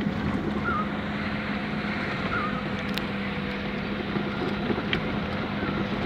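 Car driving slowly, heard from inside: a steady engine hum with road and wind noise. A few short chirps sound over it.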